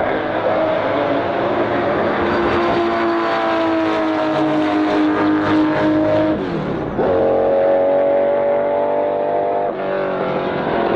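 Ferrari 250 LM's 3.3-litre V12 racing engine running hard at high revs as the car drives away. The note sags slowly, dips briefly about six and a half seconds in, and then runs on at a higher pitch and a little louder.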